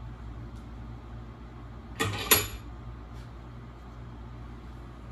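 Two sharp metal clanks from a cast-iron bench vise being worked to clamp a small piece of steel, a third of a second apart, the second the louder, over a steady low hum.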